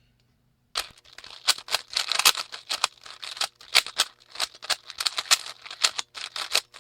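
Rapid, irregular plastic clicking and clacking of a Rubik's cube being turned, starting about a second in.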